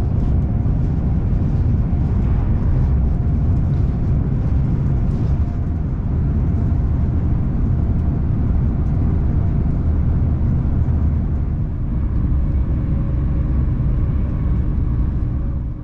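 Steady rumble of a Hull Trains Class 802 train running at speed, heard from inside the carriage, with a faint hum of steady tones over it.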